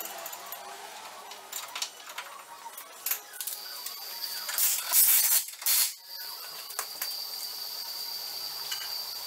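Two short, loud hisses of air or spray about five seconds in, amid scattered clicks and clinks of tools and metal parts. A faint, steady high-pitched whine starts a little earlier.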